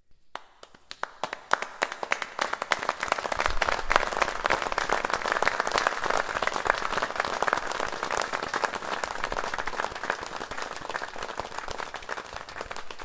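Applause from many overlapping hand claps: it starts as a few scattered claps, swells to a dense, steady applause within the first few seconds, and thins slightly near the end. It is built from one person's claps layered across 80 tracks with staggered timing and reverb, so it sounds like a wide, reverberant auditorium audience.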